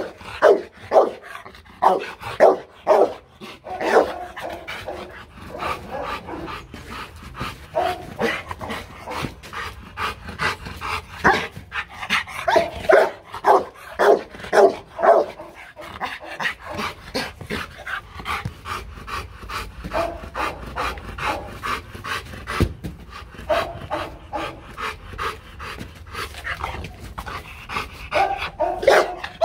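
Rottweiler barking in repeated bursts, with panting between the bursts.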